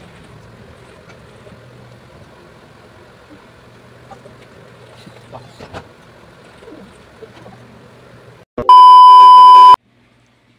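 Faint room tone with a low hum and a few light knocks, then, about eight and a half seconds in, a loud, steady, high electronic beep lasting about a second that cuts off abruptly into silence.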